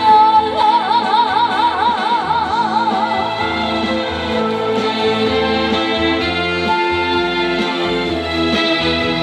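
Live trot song with a female voice holding a long note with wide, even vibrato for about three seconds. After that the backing band plays on alone.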